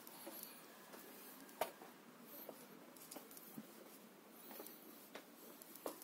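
Faint footsteps on stone steps and paving: a few scattered taps and scuffs over a quiet background, the loudest about a second and a half in and again near the end.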